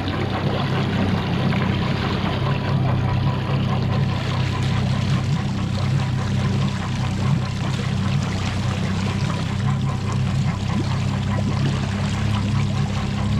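2020 Mercury 50 hp four-stroke EFI outboard motor running steadily, with water splashing and rushing around it. A faint higher tone pulses regularly above the engine note.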